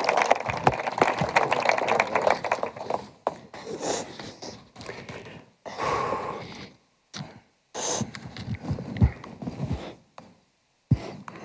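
A person sniffling and breathing shakily close to a lapel microphone, tearful and emotional, in short separate bursts with quiet gaps between. In the first few seconds there is a dense crackling rustle.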